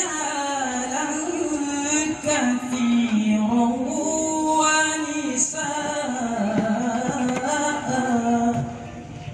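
A male qari reciting the Quran in melodic tilawah style, with long held notes ornamented with slow bends and runs; the phrase ends shortly before the close.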